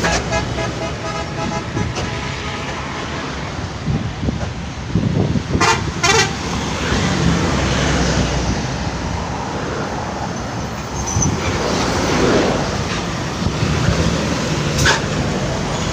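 Bus engines running, with blasts of telolet musical multi-tone horns: a tuneful horn at the start, short toots about six seconds in and another near the end.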